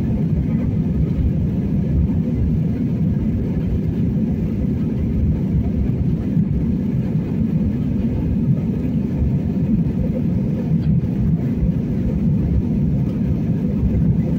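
Steady low roar of a jet airliner's engines and rushing air, heard inside the passenger cabin as the plane climbs after takeoff.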